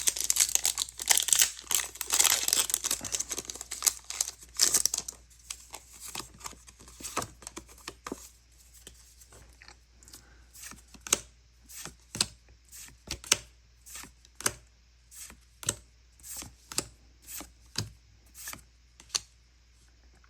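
Foil booster pack wrapper torn open, crinkling densely for about five seconds. Then the cards are flipped through one at a time, making a run of short sharp clicks, roughly one to two a second.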